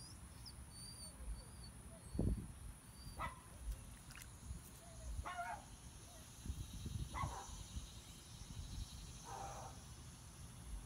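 Small terrier-type dog giving short whining yips, about five of them spread through the clip, with a low thump about two seconds in.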